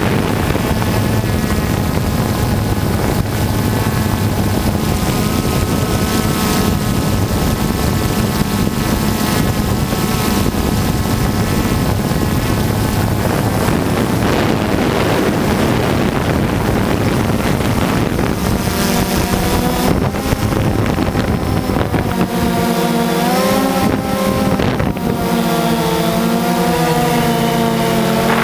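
DJI Phantom 2 quadcopter's four electric motors and propellers whining steadily, heard from the camera on board. From about two-thirds of the way through, the pitch wavers up and down as the motor speeds change while it manoeuvres.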